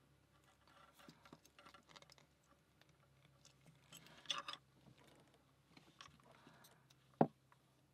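Faint small clicks and scrapes of a small metal tool working at a lock cylinder and its parts, with one sharp click about seven seconds in.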